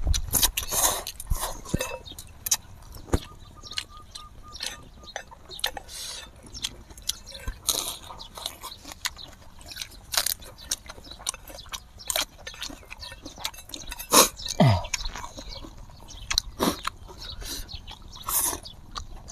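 Close-up eating sounds of spicy instant noodles and lettuce: slurping, chewing and crunching, with many short, sharp mouth smacks and clicks. Around three quarters of the way through there is a short, low hum that falls in pitch.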